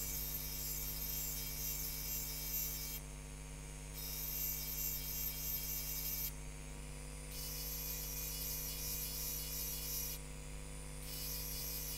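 Handheld rotary engraving drill running with a steady hum, its small ball-shaped burr grinding into the surface of a glass with a high scratchy hiss. The grinding stops for about a second three times, about 3, 6 and 10 seconds in, while the motor keeps running.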